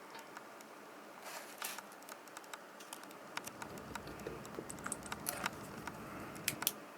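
Irregular small clicks and taps with light rustling, the sound of small parts and tools being handled, with a few sharper clicks near the end.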